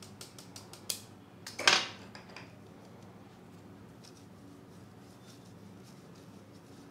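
Wire whisk clicking and scraping in a stainless steel mesh sieve, with a louder metallic clink about two seconds in. Then faint rubbing as the lumps of flour and cocoa are pushed through the mesh by hand.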